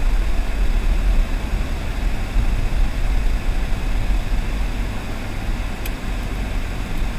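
Steady low rumble of a car driving slowly on a residential road, road and engine noise picked up by a dashcam inside the car. Two faint ticks near the end.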